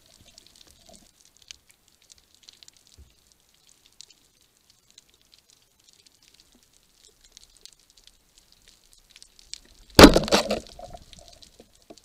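Faint underwater crackling and clicking, then about ten seconds in a wooden roller speargun fires: one sharp, loud clack as the rubber bands release, ringing and rattling away over about a second.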